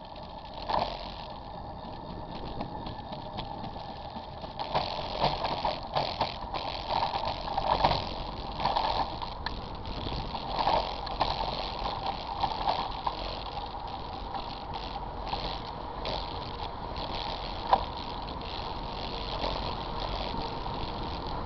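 A bicycle riding on wet pavement: a steady hiss from the tyres, with irregular rattling and knocking from the bike and its mounted camera as it goes over bumps. There is one sharp click near the end.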